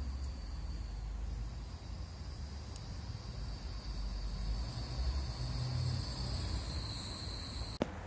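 Outdoor background sound: a steady high-pitched insect trill over a low rumble, cutting off suddenly near the end.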